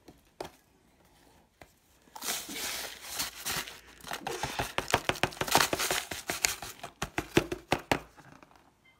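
Paper inner pouch of a box of Jiffy cornbread mix crinkling and rustling, with quick crackles, as the dry mix is shaken out into a plastic mixing bowl. It starts about two seconds in and stops near the end.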